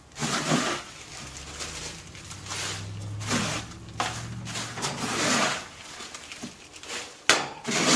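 A small plastic dustpan scraping and scooping dirty wood-shaving bedding off a cage floor: a run of separate rustling scrapes, the loudest near the end.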